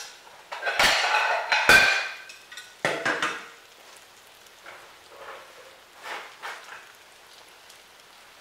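Crockery clattering as a plate is taken out and set down: a run of loud clinks and knocks with short ringing in the first two seconds, another clatter about three seconds in, then a few faint clicks.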